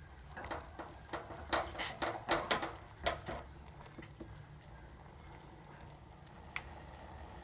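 Kitchen sounds at a pan of kadha simmering on a gas stove: light, irregular clicks and taps for the first four seconds or so, then a faint steady hum.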